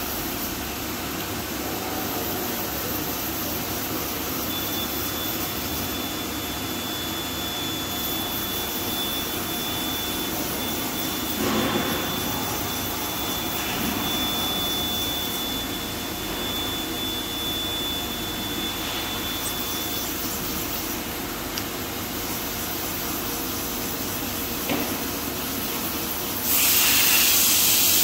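CNC vertical machining center running with a steady mechanical hum and hiss while its axes are jogged from the handwheel pendant. A thin high whine holds steady for about fifteen seconds from near the start. A short knock comes a little before halfway, and a loud hiss starts about a second and a half before the end.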